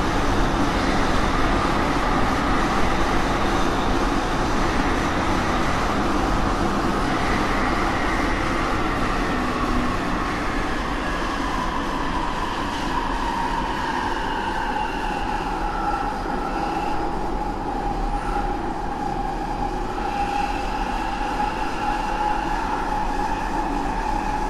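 Steady vehicle rumble with a whine that slowly falls in pitch over the first half and then holds steady.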